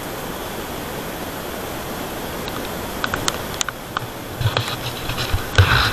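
A steady rushing hiss of water, then a scatter of sharp clicks and, near the end, low thumps.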